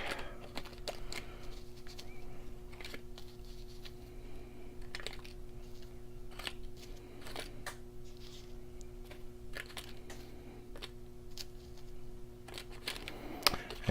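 Light, scattered clicks and taps of small gun parts (pins and springs) being handled and put back into their containers, over a steady low electrical hum.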